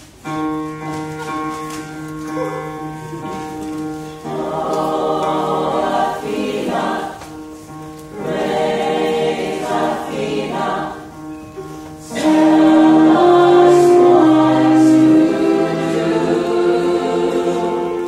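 A musical-theatre ensemble singing as a choir in long, held chords. The singing grows louder about two-thirds of the way through.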